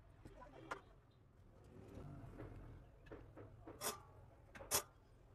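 A few faint, sharp clicks and taps of metal tweezers and a small circuit board being handled on a rubber work mat: one just under a second in, then two louder ones near the end about a second apart.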